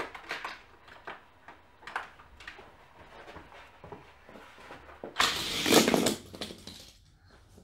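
Light clicks and rattles of die-cast toy cars on a plastic racing track, then a loud rushing noise lasting under two seconds about five seconds in.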